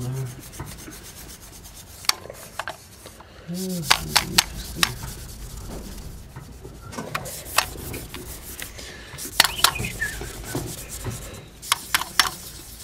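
Hand polishing the chrome steering-wheel hub and spokes: steady rubbing and scrubbing against the metal, with scattered sharp clicks as the hand and fingers knock against the chrome.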